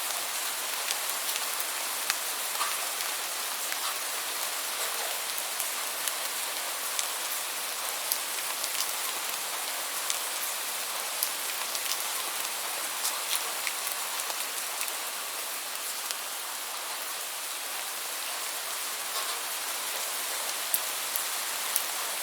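Steady rainfall, a continuous hiss with scattered individual drops ticking sharply on a surface.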